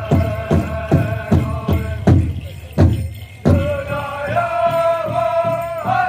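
Powwow drum group playing a grand entry song: a large drum struck together in a steady beat, about two and a half strokes a second, with singers' high voices held over it. About two seconds in, the singing breaks off for a few heavier, spaced drum strokes, then the singing comes back in.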